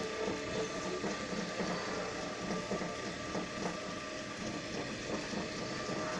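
Bench drill press running, its motor giving a steady whine over an uneven mechanical rumble.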